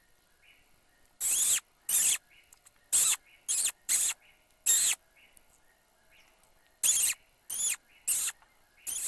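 Electronic predator call playing a small-prey distress sound: a string of short, shrill squeals, each arching in pitch, about six in the first half and four more near the end.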